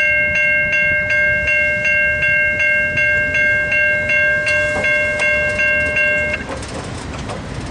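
Safetran Type 3 electronic level-crossing bells ringing, struck about three times a second, and stopping abruptly about six seconds in. A low train rumble runs underneath, with a few clicks near the end.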